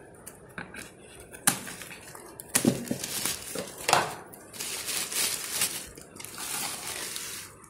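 Plastic shipping bag and paper label being ripped and crinkled off a small plastic tub: a few sharp rips, then a stretch of steady crinkling.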